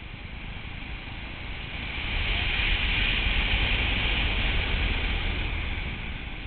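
Wind rushing over a camera microphone in a skydive, a steady hiss with a deep rumble beneath. It grows louder about two seconds in and eases back near the end.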